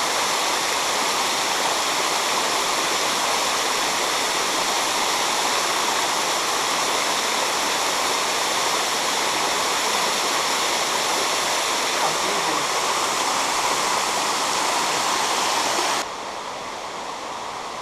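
Steady loud rush of a waterfall, cutting off abruptly near the end to a quieter, steady water sound.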